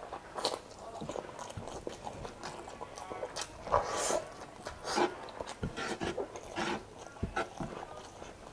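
Close-up eating sounds: wet chewing and lip smacking, sucking meat off a chicken bone, and fingers squishing saucy rice. The sounds come as irregular clicks and wet bursts, loudest about four seconds in.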